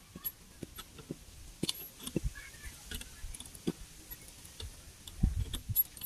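Scissor car jack being cranked up by hand with its crank rod, the car being raised until the wheel clears the ground: irregular metallic ticks and clicks, with a dull low knock about five seconds in.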